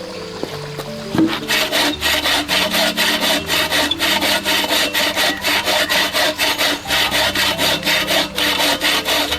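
Hand saw cutting through wood in quick, even back-and-forth strokes, about three or four a second, starting about a second in.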